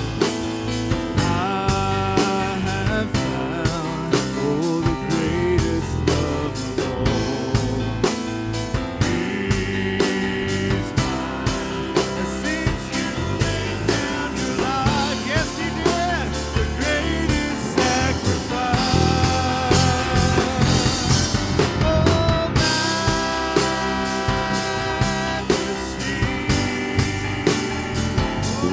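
Live worship band playing an instrumental passage, with a drum kit keeping a steady beat under held notes from melodic instruments.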